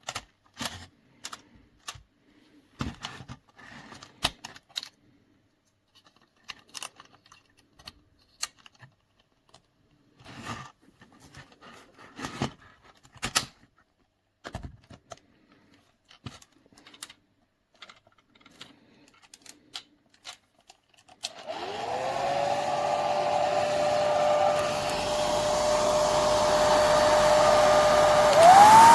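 Scattered clicks and knocks of handling, then a hair dryer switches on about two-thirds of the way in, its motor whine rising and settling into a steady tone over the rush of air. Near the end it steps up to a higher speed setting with a higher-pitched whine.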